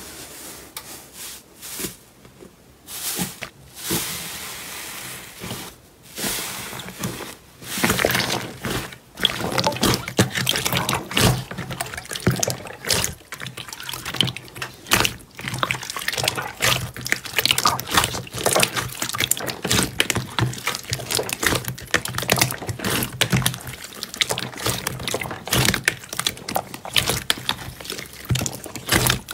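Hands squishing and kneading slime in a plastic tub. At first there are a few soft presses. From about eight seconds in comes a continuous wet squelching and popping of trapped air bubbles as a glossy clear slime is squeezed.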